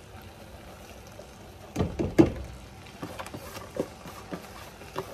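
Chopped onions and greens tipped from a plastic bowl into a steel pot of cooked ground beef, with a few loud knocks about two seconds in as the bowl hits the pot, then lighter taps as it is shaken out.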